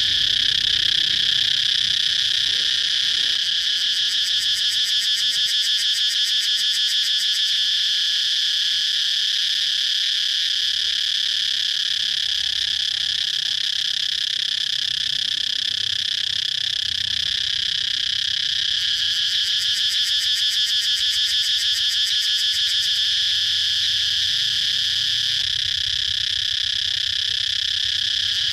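Cicadas singing: a steady, continuous high-pitched buzzing drone, with a faster pulsing rattle coming in twice, a few seconds in and again past the middle.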